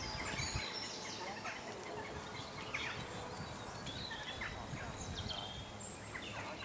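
Wild birds chirping and singing from the surrounding trees, with many short high calls scattered throughout over faint outdoor background noise.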